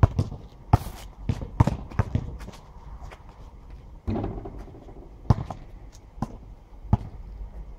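Basketball bouncing on an asphalt court: separate sharp bounces and short dribbles, with a louder hit that rings briefly about four seconds in as a shot strikes the hoop.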